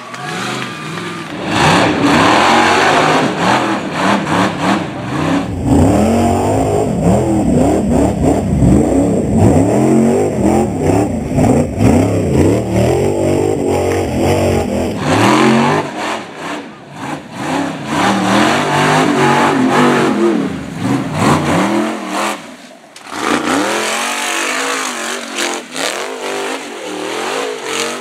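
Off-road hill-climb buggy engines revving hard at full throttle, the pitch rising and falling over and over with each stab of the throttle, over several separate runs one after another.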